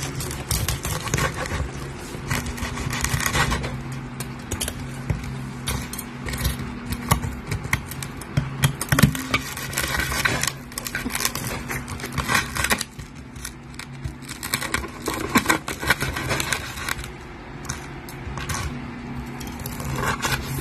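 Knife and fork cutting through the skin of a crispy pata (deep-fried pork knuckle): repeated crackling crunches and scrapes against a wooden board, over a steady low hum.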